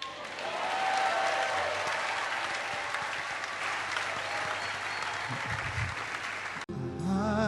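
Congregation applauding, with a voice calling out briefly about a second in. The applause cuts off suddenly near the end as music begins.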